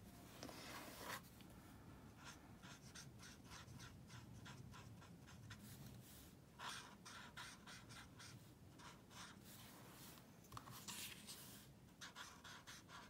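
Faint scratching of an alcohol-based blending marker tip on cardstock, in many short colouring strokes with a few brief louder passes.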